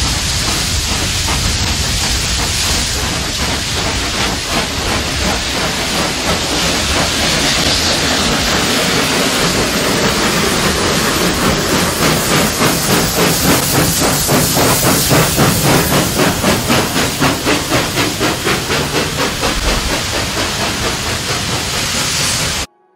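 Steam locomotives working hard as they pull away: a loud, steady hiss of steam blowing from the open cylinder cocks, then from about ten seconds in a regular chuffing exhaust beat at about two to three beats a second. It cuts off suddenly near the end.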